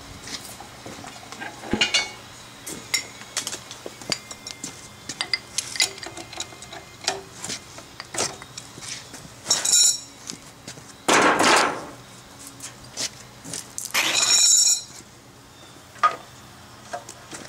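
Small cast-iron Briggs & Stratton engine on a water pump being hand-cranked by its recoil starter: three pulls of the rope about halfway through and near the end, without the engine catching, among metallic clicks and clinks from handling the controls.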